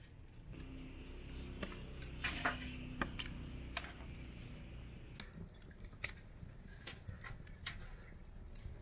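A wood fire crackling with irregular sharp pops under a large aluminium cooking pot, over a low steady rumble.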